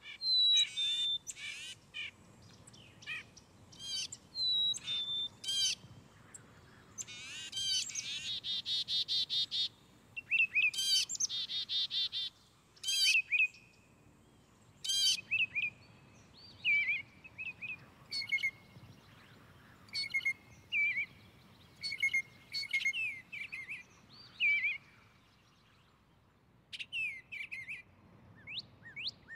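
Songbirds chirping and calling in short bursts, with a fast run of quick repeated notes near the start and a string of short, lower chirps later on.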